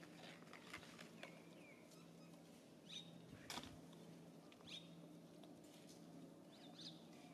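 Near silence with a faint steady low hum, broken by a few faint, short high-pitched chirps that drop in pitch and a sharp click about three and a half seconds in.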